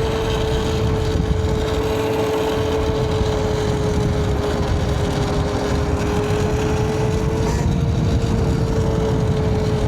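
YOZMA IN10 Pro electric dirt bike riding along, its electric motor whining at a steady pitch over a heavy rush of wind and road noise.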